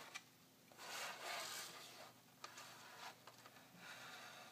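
Hands handling the plastic body and flash unit of a Polaroid Supercolor 635CL instant camera: faint rubbing and scraping with a few small clicks.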